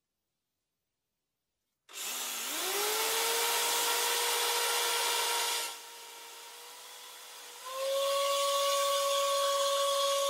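After about two seconds of silence, a cordless drill spins up and runs against the brick wall with a steady whine and a grinding hiss. It eases off about halfway, speeds up again at a slightly higher pitch, then winds down at the end.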